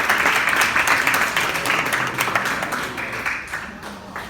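Small audience applauding, dense clapping that dies away near the end.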